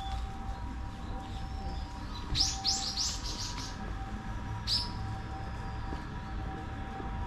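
A bird calling: a quick run of about five shrill, falling notes, then one more a second later.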